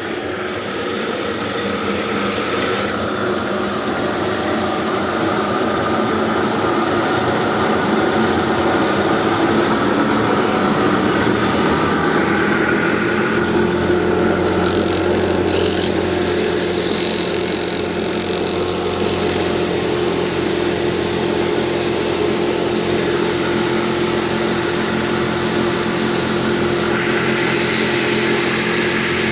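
A machine running steadily, with a constant hum under a broad mechanical noise.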